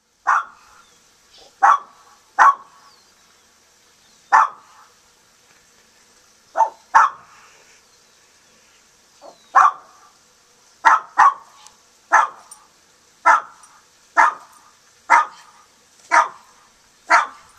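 A dog barking loudly in short single barks and quick pairs, about fifteen in all at roughly one a second: alert barking at a hawk perched on the fence.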